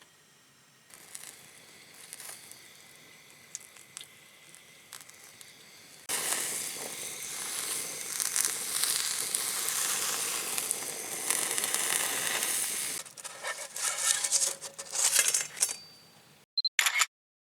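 Food sizzling in a frying pan: a faint hiss with light clicks, then a loud, even sizzle that starts suddenly about six seconds in and lasts about seven seconds, followed by crinkling, crackly noises before the sound cuts off.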